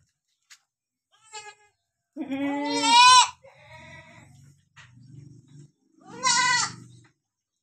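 Newborn goat kids bleating: two loud, high-pitched bleats, the first rising in pitch about two seconds in and the second about six seconds in, with a faint short bleat just before them.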